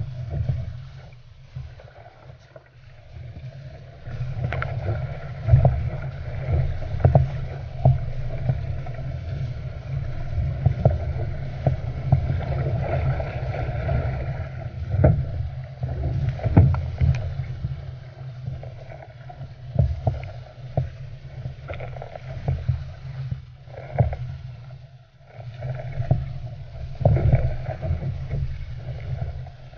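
Water rushing and slapping against the hull of an Epic V8 surfski running downwind through small waves, with frequent irregular splashes and wind buffeting the microphone.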